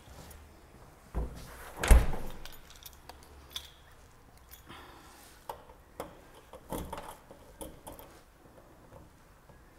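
A door shuts with a loud thud about two seconds in, then keys jangle and click against the brass deadbolt and knob lock as the door is locked with a key.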